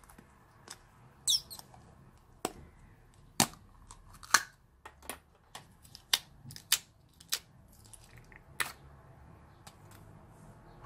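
About a dozen irregular sharp clicks and pops, with a brief crackle early on, as a small soft plastic slime tub is squeezed and turned over to let clear slime drop out.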